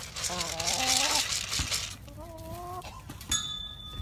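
Goat bleating twice, each a short held bleat, the first wavering in pitch. Near the end a sudden sharp sound is followed by a thin high steady tone.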